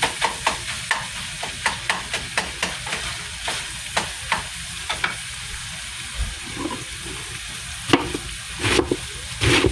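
Ground beef with taco seasoning sizzling in a frying pan while a utensil stirs it, scraping the pan about twice a second through the first half. A few louder knocks come near the end.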